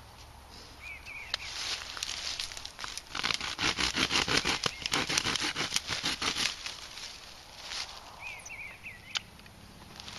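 Dry mullein stalk being cut with a knife and broken off, a dense run of crackling and snapping from about a second and a half in until about seven seconds in.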